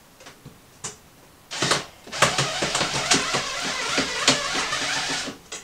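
A small screw being driven into the drawer bottom to fix the securing strap: after a single soft click, a dense, gritty scraping full of rapid clicks runs for about four seconds, then stops abruptly.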